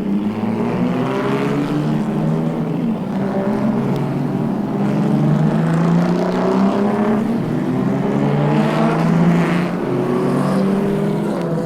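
Racing car engines running hard, the engine note climbing and dropping again and again as they rev and change gear.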